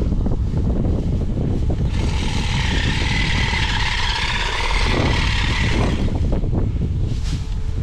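Wind buffeting the microphone throughout. In the middle, a small handheld electric cutter whines steadily for about four seconds, cutting dry marsh grass.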